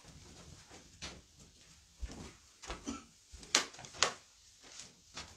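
Irregular knocks, clicks and rustles of people moving about and handling things in a small room. Two sharp clicks about three and a half and four seconds in are the loudest.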